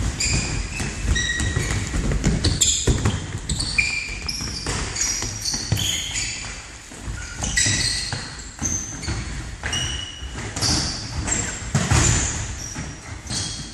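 Indoor football game in a sports hall: many short high squeaks of shoes on the hall floor and repeated thuds of the ball being kicked and bouncing, echoing in the hall.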